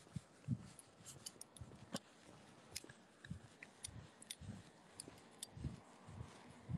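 Faint footsteps on pavement at a walking pace, with scattered small clicks and rustles from handling the phone that is recording.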